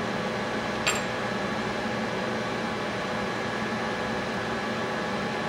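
Steady machine hum with a few steady tones in it, and one light click about a second in as small parts of the stage's rotation hub are handled.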